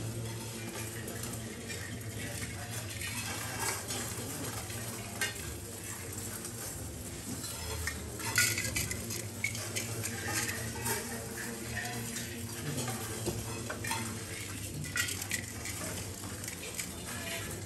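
Several people pouring rice grains onto metal mandala offering plates and wiping them off again, giving a continuous patter of rattles and scrapes with the loudest clatter about eight seconds in. A low steady hum sits underneath.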